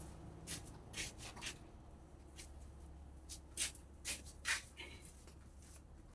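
Faint light clicks and knocks of an aluminium sliding-window frame being handled and carried, the sharpest two about three and a half and four and a half seconds in, over a low steady hum.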